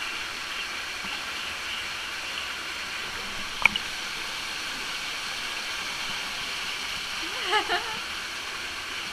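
Steady hiss of a waterfall pouring into a pool. A single sharp click comes a little past a third of the way in, and a brief distant voice calls out near the end.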